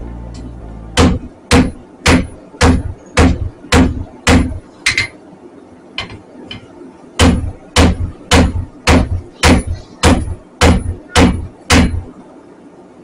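Hand hammer forging a red-hot 5160 steel knife blank on an anvil: two runs of steady blows, about two a second, first seven and then nine after a short pause, each blow with a brief high ring.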